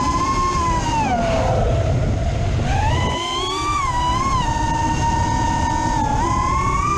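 High-pitched electric motor whine run on a 6S battery, steady in pitch, sagging lower about a second in as if loaded, then climbing back about three seconds in, with a couple of brief wobbles.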